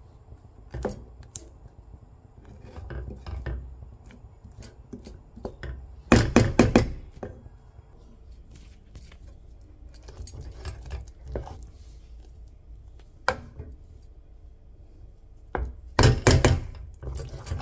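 Wooden spatula stirring and scraping thick chocolate fudge mixture in a steel pan, with scattered knocks against the pan. Two quick runs of loud tapping come about six seconds in and near the end.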